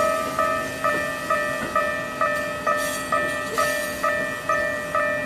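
Japanese railway level-crossing warning bell ringing, an electronic ding of several tones repeated about twice a second.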